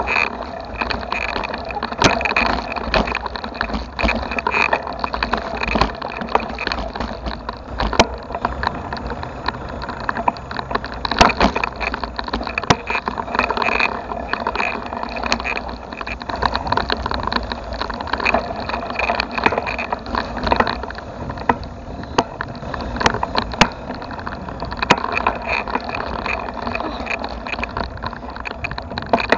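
Bicycle being ridden: steady rolling and wind noise with frequent sharp knocks and rattles throughout.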